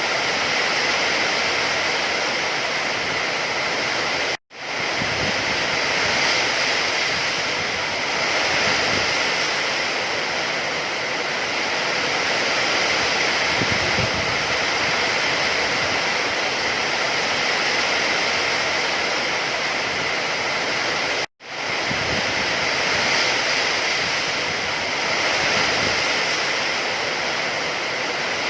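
Steady rain, a dense even hiss of falling water. It cuts out completely for an instant twice: about four seconds in and again about twenty-one seconds in.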